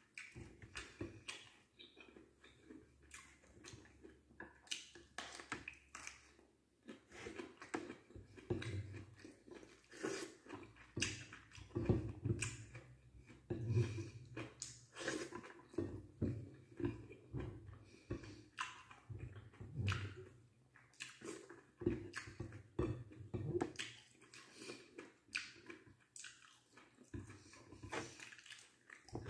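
Close-up chewing and lip smacking of a person eating rice and vegetables: a steady run of short, wet clicks and smacks.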